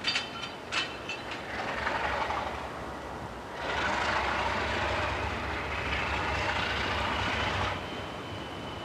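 Alco RS32 diesel locomotive starting to roll slowly, with its engine rumbling. A few sharp metallic clanks come in the first second or so. A few seconds in, a louder rushing noise begins with a thin squeal slowly rising in pitch, and it cuts off near the end.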